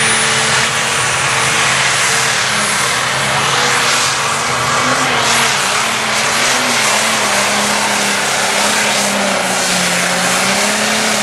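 Single-turbo diesel engine of a light pro stock pulling tractor running flat out under full load while dragging the sled, with a high, steady turbocharger whine over the engine. The engine pitch wavers and sags a little near the end.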